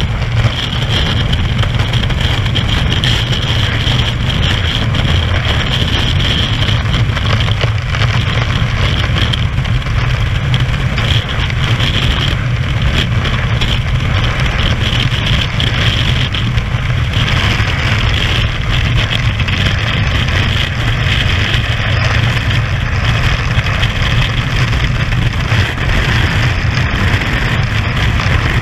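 Loud, steady rush of freefall wind buffeting a skydiver's camera microphone.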